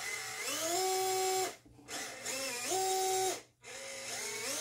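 Motor and gearbox of an FMS 1/18 FJ Cruiser RC crawler whining with its wheels spinning in the air, three throttle pulls, each rising in pitch in a few distinct steps, holding, then cutting off. The stepped rise comes from the radio's coarse, low-resolution proportional throttle, and the motor sounds kind of weird.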